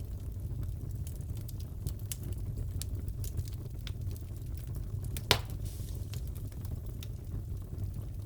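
Fireplace crackling: a steady low rumble of burning wood with scattered small crackles and one sharp, louder pop about five seconds in.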